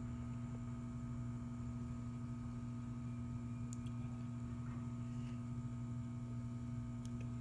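Steady electrical mains hum with a few faint clicks.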